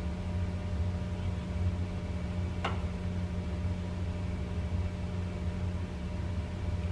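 Steady low hum of a running kitchen appliance, with one sharp click about two and a half seconds in.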